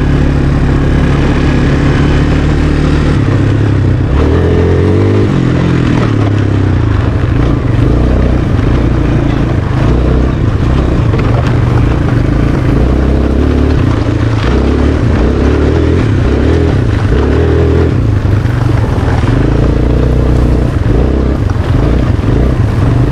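Sport quad's single-cylinder four-stroke engine running while being ridden, its pitch stepping up and down several times as the throttle opens and closes.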